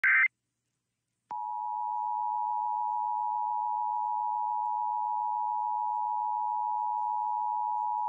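Emergency Alert System broadcast over FM radio. The last brief burst of the SAME digital header data tones sounds at the very start. About a second later the EAS two-tone attention signal begins, a steady, unbroken dual tone announcing the emergency message that follows.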